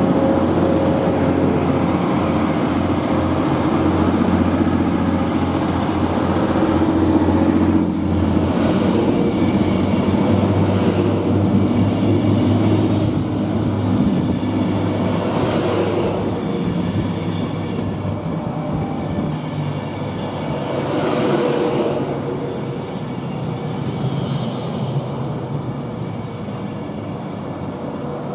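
British Rail Class 390 Pendolino electric train pulling in and slowing alongside the platform: a continuous rumble of wheels on rail with thin steady whines over it, one high whine rising slightly in pitch midway. The sound eases off gradually near the end as the train slows.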